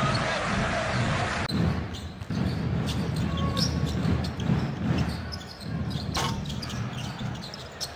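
Basketball game sound in an arena: a ball bouncing on the hardwood court and sneakers squeaking, over a steady crowd noise. The sound changes abruptly about a second and a half in, where the footage cuts to another play.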